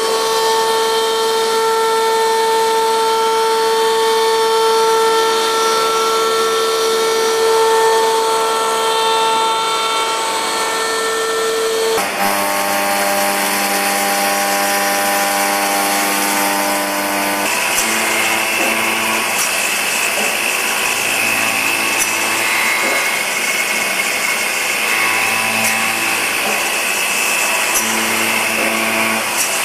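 CNC milling: a machining centre's spindle whine, a steady pitched tone over the hiss of the cutter in metal. The pitch switches abruptly about twelve seconds in and again a few seconds later, and near the end the cutting sound swells and fades every second or two.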